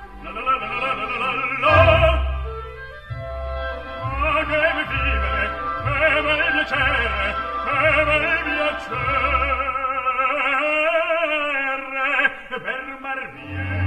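Operatic singing with orchestral accompaniment, played back through the Dongfeng Nissan N7's car audio system. The voice holds long notes with a wavering vibrato.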